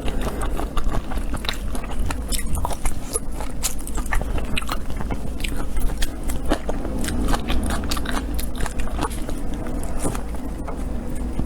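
Close-miked eating of shrimp: steady biting and chewing with many sharp clicks and crackles, over a low steady hum.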